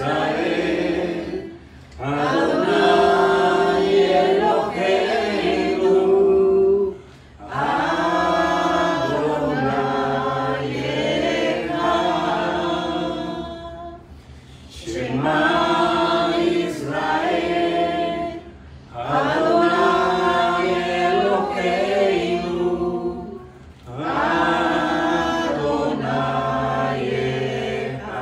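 Voices singing a slow prayer song in phrases of about five seconds, with short pauses between phrases.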